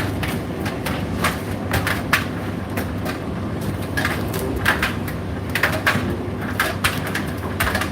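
Indesit IDC8T3 condenser tumble dryer running: a steady low hum with irregular clicks and knocks scattered through it.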